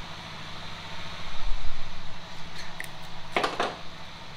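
A steady low mechanical hum with a fast even pulse, swelling briefly about one and a half seconds in. Two sharp clicks come in quick succession about three and a half seconds in.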